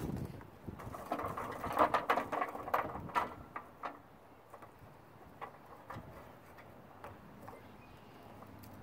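Kingsford charcoal briquettes clicking and clattering against each other and the metal grate as they are stacked by hand into a pile. A dense run of knocks comes a couple of seconds in, then only scattered single clicks.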